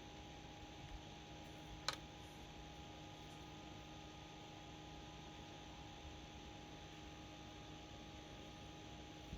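Faint steady electrical hum with a few fixed tones, broken once, about two seconds in, by a single sharp click.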